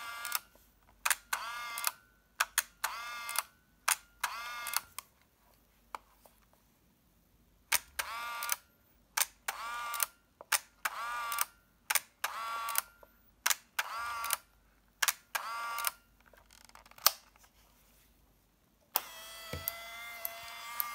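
Olympus Trip AF 50 compact 35mm film camera fired over and over: each press gives a sharp shutter click followed by a short rising whir of the camera's winding motor. There are about twenty in two runs, with a pause of about three seconds between.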